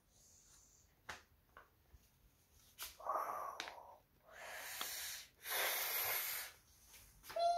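A few faint clicks, then three breathy, hissing exhalations or sniffs, each lasting about half a second to a second.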